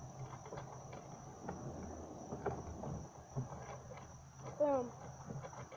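Crickets trilling steadily in the background, one thin high-pitched note, with a few light knocks and rustles close by and a short voiced exclamation near the end.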